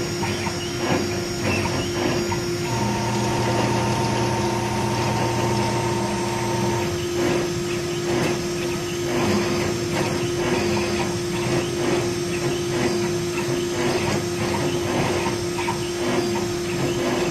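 A 6060 CNC metal engraving machine running: a steady spindle whine with irregular scratchy cutting noise. A few extra steady tones join in from about three to seven seconds in.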